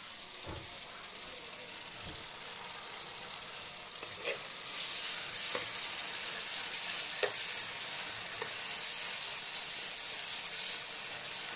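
Chopped tomato and onion masala sizzling in oil in a kadai, stirred with a spatula that scrapes and knocks against the pan every second or two. The sizzle gets louder about five seconds in.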